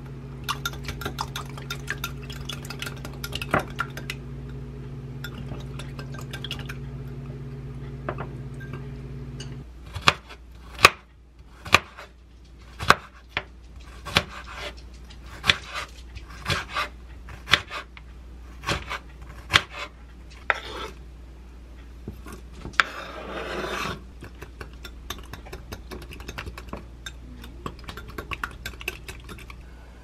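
Eggs beaten with a wire whisk in a glass cup, clinking and rubbing against the glass over a steady low hum that stops about ten seconds in. Then a kitchen knife chops bell pepper on a wooden cutting board, sharp knocks at roughly one a second, followed by a brief scraping rush.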